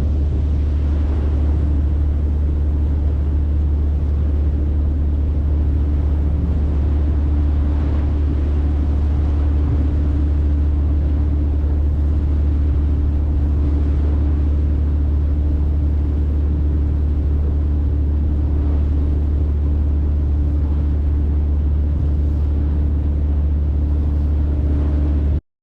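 Tour boat's engine running steadily aboard, a constant low drone with a steady hum above it; it cuts off suddenly near the end.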